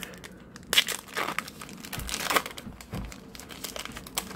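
Foil trading-card pack wrapper crinkling in irregular bursts as it is torn open by hand and the cards are pulled out, with a couple of soft bumps.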